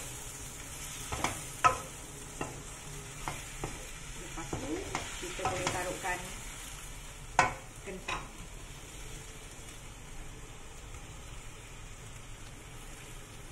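A wooden spatula stirs cabbage, peas and minced meat in a wok, scraping and knocking against the pan over a steady sizzle of frying. The knocks stop after about eight seconds, leaving only the sizzle.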